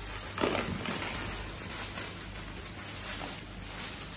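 Hollow plastic play balls tumbling from a crinkling plastic bag into a fabric ball pool, with one sharper knock about half a second in.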